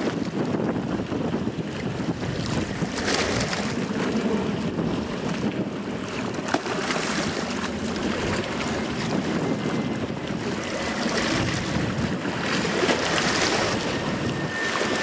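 Steady rushing of wind on the microphone over choppy water, with a faint thin whistle-like tone coming in about two-thirds of the way through.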